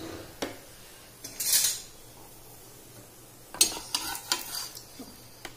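A metal kitchen utensil clinking and scraping against cookware. There are a few sharp taps, a short scraping rush about a second and a half in, and a quick cluster of clinks and scrapes near the end.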